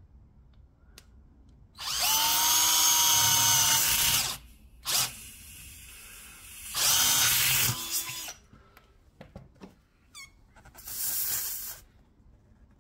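Power drill with a twist bit drilling holes through a car tyre's rubber tread. The motor whines in separate runs: a long one of about two and a half seconds, a brief blip, a run of about a second, and a quieter last run.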